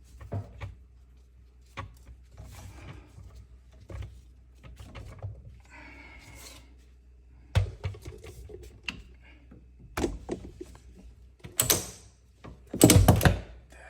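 Irregular clicks, knocks and clatter of tools and pipe parts being handled, with two heavier thuds near the end.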